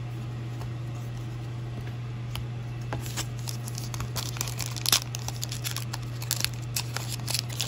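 Foil trading-card pack wrapper crinkling and tearing in the hands, in irregular sharp crackles that start about three seconds in, over a steady low electrical hum.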